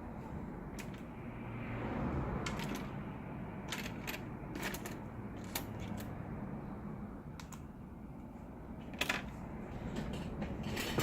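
Scattered light clicks and taps of small precision screwdriver tools being picked up and worked on a laptop's hinge screws, over a low steady hum.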